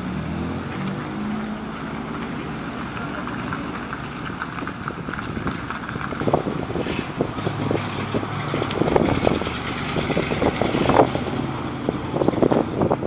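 Heavy fire trucks' engines running as the trucks pull in at low speed, with a car driving by. The engine noise grows louder and rougher from about halfway through as the ladder truck passes close by.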